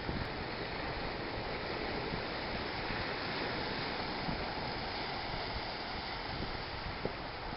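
Ocean surf breaking and washing over shoreline rocks and a rock jetty: a steady rush of foaming water.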